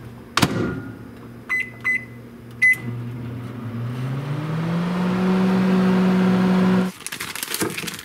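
Panasonic microwave oven: the door shuts with a knock, three keypad beeps follow, then the oven starts running, its hum rising in pitch and then holding steady until it cuts off near the end. Wax paper crinkles briefly after it stops.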